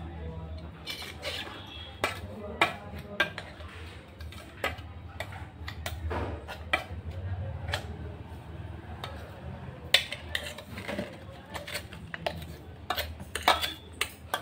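A steel spoon clinking and scraping against the inside of a steel mixer-grinder jar, getting out ground biscuit powder: many sharp, irregular clinks over a steady low hum.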